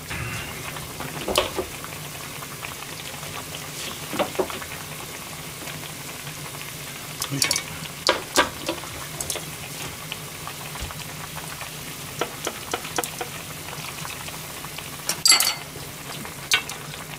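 Miso soup simmering in a hammered aluminium yukihira pan on a gas stove, a steady bubbling hiss, with scattered clinks and knocks of a metal ladle against the pan. The loudest knock comes near the end.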